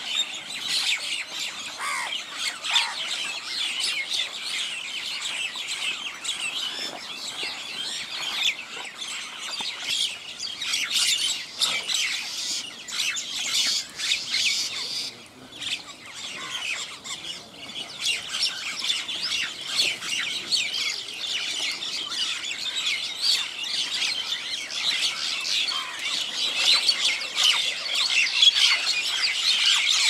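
A mixed flock of house crows and mynas calling over each other without a break, a dense chatter of squawks and chirps that dips briefly about halfway through.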